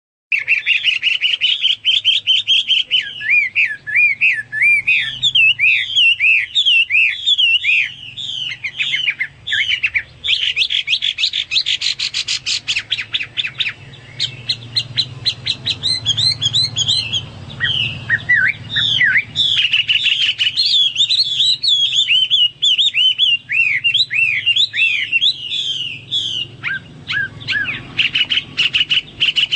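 Hwamei (Chinese hwamei, a laughingthrush) singing a long, varied song of loud whistled phrases, with rapidly sweeping notes and fast rattling trills.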